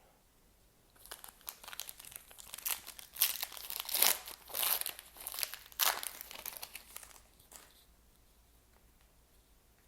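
A trading card pack being torn open, its wrapper crinkling and crumpling in an irregular run of crackles from about a second in until well past halfway.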